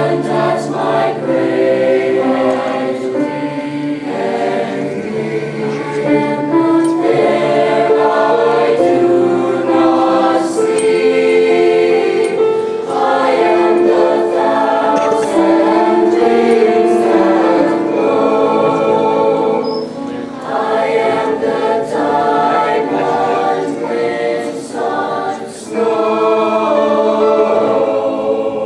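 Mixed school choir singing in harmony, holding sustained chords. It is softer for a few seconds past the middle and swells again near the end.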